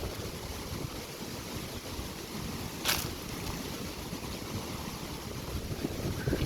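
Wind buffeting the microphone over the wash of sea waves on the beach, with one sharp click about three seconds in.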